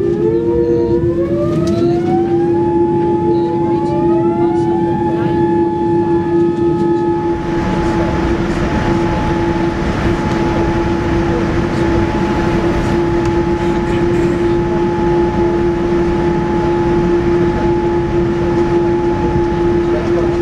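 Boeing 787-9 GEnx turbofan engine heard from inside the cabin, spooling up: several whining tones rise together and settle after about five seconds into a steady hum and whine. About seven seconds in, a broad rush of air noise swells up and continues under the steady whine.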